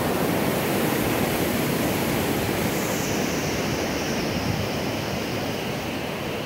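Fast-flowing creek rushing over rocks: a steady noise of water that eases slightly near the end.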